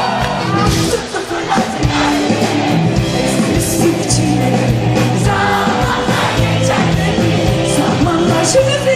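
Live pop concert music: a band with drums playing loudly, with singing and crowd noise mixed in.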